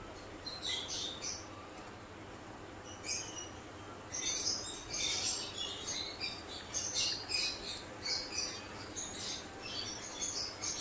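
Breaded potato drumsticks deep-frying in hot oil: the oil sizzles and crackles in irregular pops, getting busier from about four seconds in as more pieces are added.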